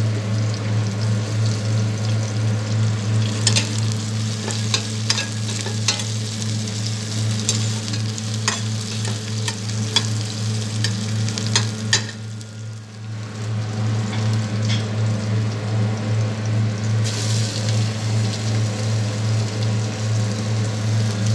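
Garlic, ginger, onion and chili sautéing in hot oil, sizzling steadily while a utensil stirs and clicks against the pan, over a steady low hum. The sizzle drops away briefly about twelve seconds in, then comes back.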